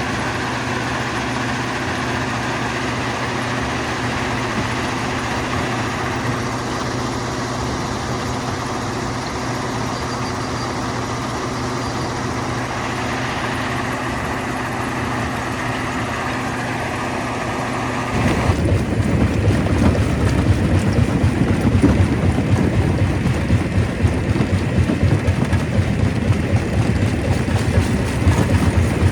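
Stone crusher plant machinery running with a steady droning hum. About two-thirds of the way through, the sound changes abruptly to a louder, rougher low rumble.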